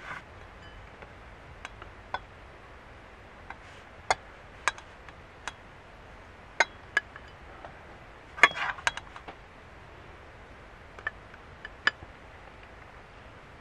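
A plastic rice paddle clinking and knocking against a small pot and a ceramic bowl as cooked rice is served. The clinks are light and scattered, about ten in all, and the loudest comes a little past the middle.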